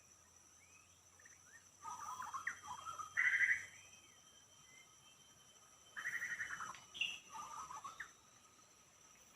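White-rumped shama singing two short phrases of varied whistled and warbled notes, the first about two seconds in and the second about six seconds in, over a steady high-pitched hum.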